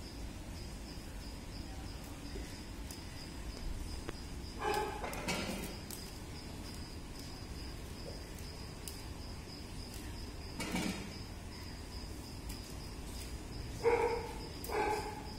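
Insects chirping steadily in a high continuous trill. A few short calls stand out: one about five seconds in, one near eleven seconds, and two in quick succession near the end.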